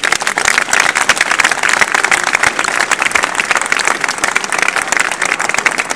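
A large crowd applauding, a dense patter of many hands clapping.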